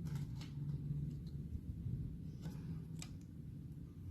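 A few faint clicks from a lighter being struck and handled to burn through polyester yarn, with a low steady hum underneath.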